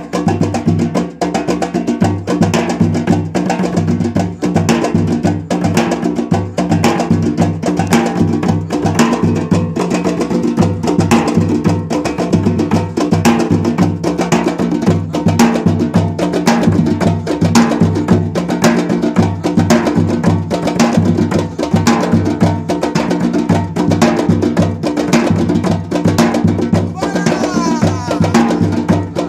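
Brazilian percussion music with a fast, dense rhythm of hand-drum strikes, led by the timbal, over a repeating bass pattern.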